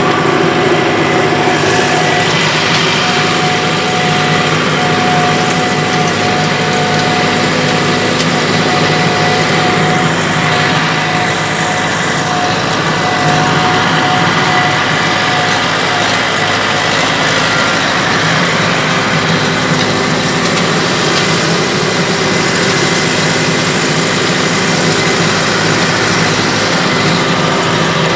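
Tractor engine running steadily while pulling a trailed boom sprayer, heard close up from the driver's seat. A steady high whine runs over it until about halfway through.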